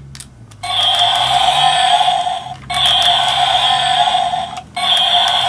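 Electronic Spinosaurus toy playing its recorded roar through its small built-in speaker: three roars in a row, about two seconds each, set off by pushing down one of its arms. A couple of small clicks come just before the first roar.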